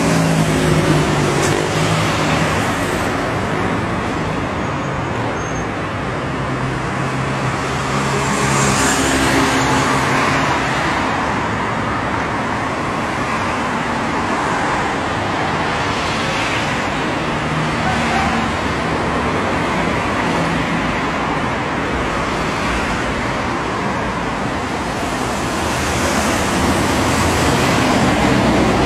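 Street traffic: cars and a bus passing on the road, a steady noise of tyres and engines that swells each time a vehicle goes by, loudest near the start and again near the end.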